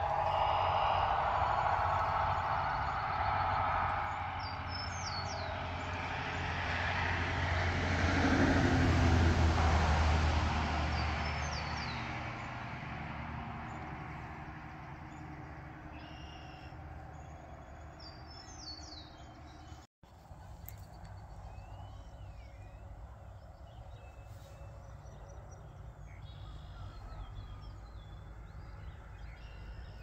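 A motor vehicle passing on the road, swelling to its loudest about nine seconds in and fading away, with birds chirping. After a cut about twenty seconds in, only quieter birdsong remains.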